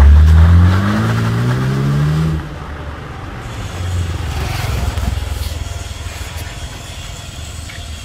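BMW 320i's engine accelerating hard through an aftermarket valved exhaust tuned for a deep, warm tone, its pitch climbing for about two seconds. The sound then drops off sharply and the car carries on more quietly as it pulls away.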